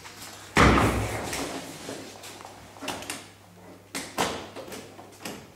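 A hard-shell suitcase is dropped heavily onto a table with one loud thud, followed by a few lighter knocks as it is handled and shifted on the tabletop.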